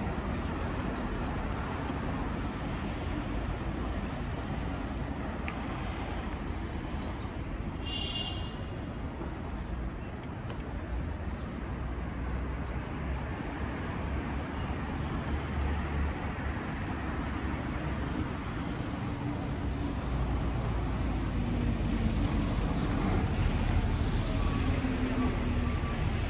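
Steady road-traffic noise from cars, buses and scooters passing on a multi-lane city road, with a short high squeal about eight seconds in.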